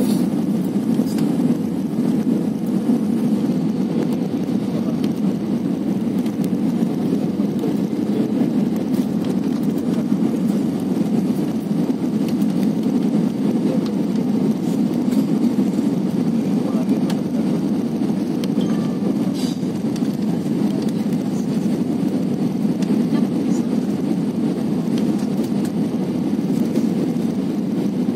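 Airliner cabin noise on approach: a steady low rumble of jet engines and airflow heard from inside the cabin, with flaps extended.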